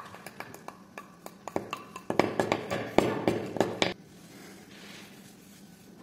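Two sticks of charcoal ground and knocked against each other over paper, shedding crumbs: a run of dry clicks and scrapes that grows louder and denser about two seconds in. It stops about four seconds in, leaving a faint soft rubbing of tissue on paper.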